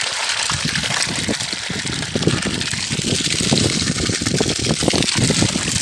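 Water gushing hard from a borehole outlet pipe fed by a 0.75 hp solar-powered pump, spraying into plastic buckets and splashing onto the ground. The strong flow shows good pump pressure.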